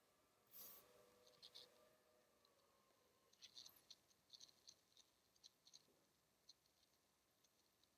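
Near silence: faint room tone with a few soft scattered clicks, most of them between about three and six and a half seconds in.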